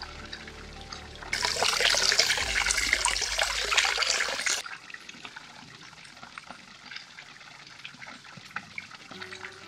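Spring water pouring from the metal spout of a stone fountain into its stone trough, splashing over a hand held in the stream. The loud splashing starts suddenly about a second in and stops suddenly after about three seconds, leaving only a faint trickle.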